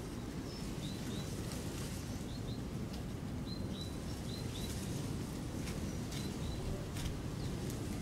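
Small birds giving short, high chirps, often two in quick succession, over a steady low rumble, with a few faint sharp clicks.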